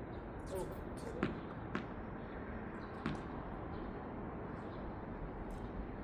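Tennis ball being struck by rackets and bouncing during a rally: three sharp pops in the first half, over a steady background hiss.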